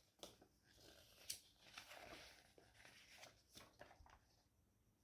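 Near silence with a few faint taps and a brief soft rustle of unboxing contents being handled.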